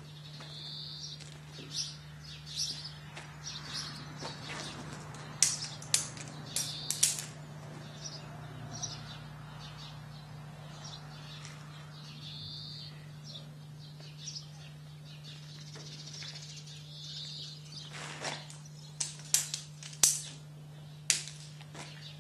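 Birds chirping now and then over a steady low hum. A few sharp clicks come in two clusters, about a quarter of the way in and again near the end.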